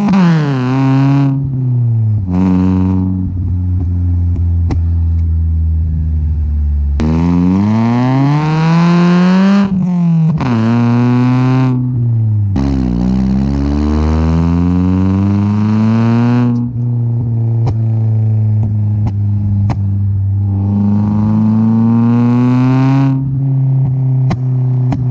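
Toyota Altezza's 3S-GE four-cylinder engine heard through its exhaust at the tailpipe while driving: the note climbs in pitch under acceleration and drops back sharply at each gear change, several times over, then holds a steadier drone at cruise before easing off near the end.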